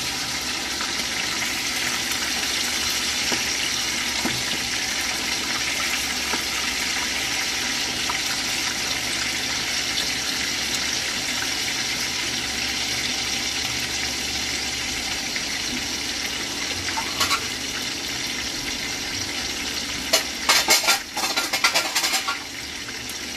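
Chicken breast pieces shallow-frying in a pan of hot oil, a steady, even sizzle. Near the end a metal utensil clicks and scrapes against the pan a few times.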